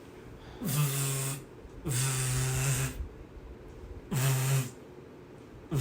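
A man's voice making four short, low, steady sounds, each with a breathy rasp over it: a vocal sound effect rather than speech.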